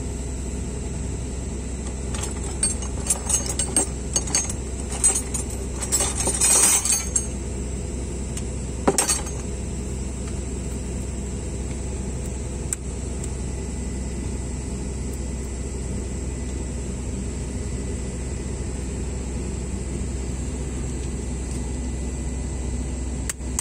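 Steel hand tools clinking and rattling on the excavator engine as the mechanic works with a 14 mm socket wrench to retorque, several clinks in the first seven seconds and one sharp clink about nine seconds in. A steady low machine hum runs underneath.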